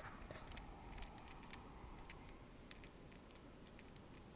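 Near silence: faint roadside ambience with a few scattered faint ticks.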